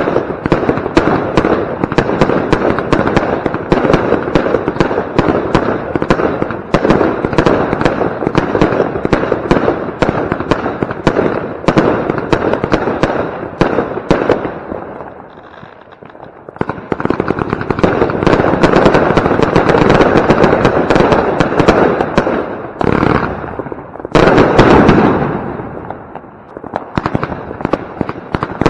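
Consumer firework battery (Pyrocentury Gold Blauer Himmel) firing: a dense run of shots and crackling bursts, which dies down briefly about halfway through and then fires again.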